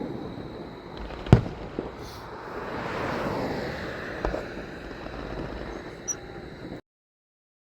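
Fireworks going off: a sharp bang about a second in, a spell of crackling, another bang a few seconds later and a smaller pop. The sound cuts off suddenly near the end.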